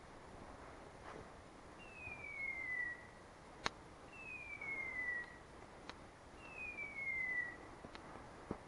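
A hunting dog's beeper collar sounding its hawk-cry signal three times, an identical falling whistle-like tone about a second long each time, evenly spaced about two seconds apart: the repeating signal a beeper gives when the dog is on point. Sharp clicks, the loudest between the first and second tones.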